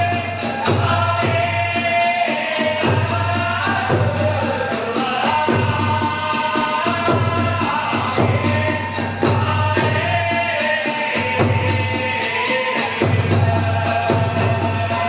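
Kagura hayashi accompaniment: a large drum beating a steady pulse about once a second, small hand cymbals (tebyoshi) clashing rapidly, and a sliding melody from a bamboo flute or singing voice.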